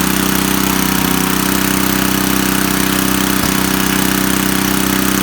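Coleman Powermate 4000-watt generator's 8 hp Tecumseh single-cylinder flathead engine running steadily on its newly fitted replacement carburetor.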